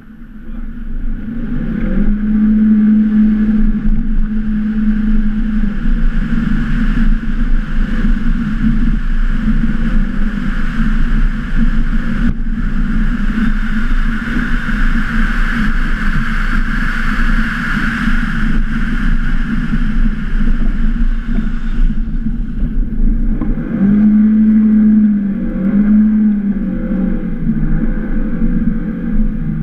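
Audi A1's engine under load as the car drives a snow course. Its note climbs in the first couple of seconds and holds, then comes back near the end, climbing and dipping twice. A steady rushing noise runs through the middle stretch.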